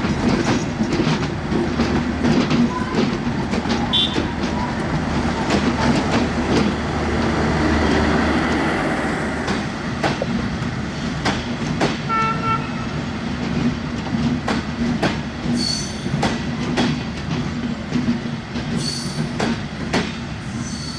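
Passenger train running on the rails, a steady rumble with repeated sharp clicks of the wheels over rail joints. A brief tone sounds about halfway through, and high wheel squeals come in during the last few seconds.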